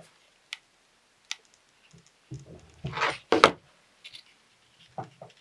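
Cut cardstock pieces being handled and pressed together: scattered light clicks and taps, with a louder paper rustle twice in quick succession about three seconds in.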